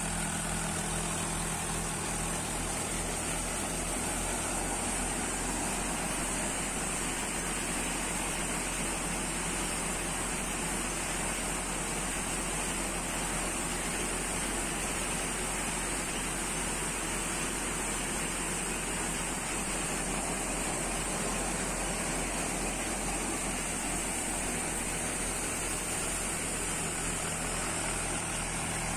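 Mahindra Arjun 555 DI tractor's four-cylinder diesel engine running steadily under load, driving a Bansal multicrop thresher as it threshes soybeans. The thresher's whir and a steady high hiss run over the engine.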